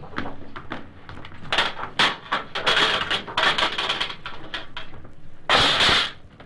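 Sound-effect footsteps and door knocks, then scraping and wrenching as an old mailbox is pulled off a porch wall, ending in a loud crash about five and a half seconds in as it falls.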